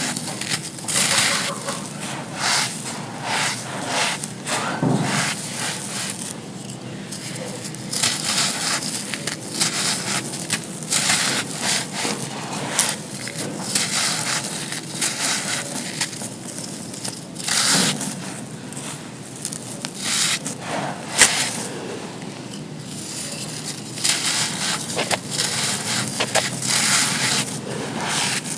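Dry, gritty sand pieces crushing and crumbling, a crisp crunchy crackle that comes in uneven spells with short lulls, and one sharper crack about three quarters of the way through.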